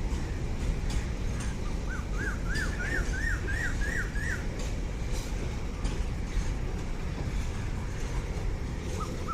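A bird calling a quick run of about eight arched chirps that climb in pitch, then two short notes near the end, over a steady low rumble.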